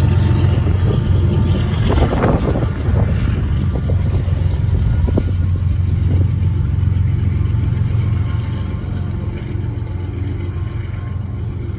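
Diesel locomotive at the rear of a Union Pacific freight train running past and moving away, its low, steady engine hum fading. A few sharp clacks of the wheels over rail joints come in the first half.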